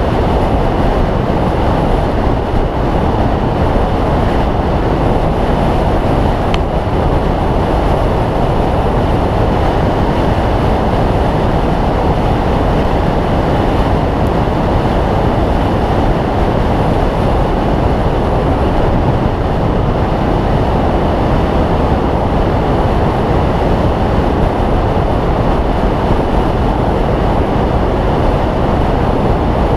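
Steady wind rush and road noise on a handlebar-mounted GoPro's microphone as a road bike rides along a tarmac lane at speed.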